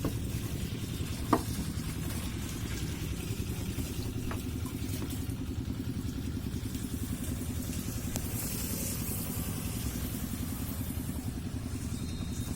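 Washing machine motor running with a steady low hum, with a single sharp click about a second in.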